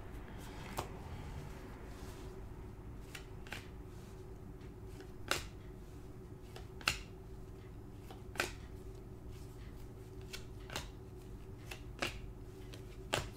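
Trading cards being flipped one at a time through a stack of Upper Deck hockey cards in gloved hands, each card giving a short sharp snap, about ten over the stretch at uneven intervals. A steady low hum runs underneath.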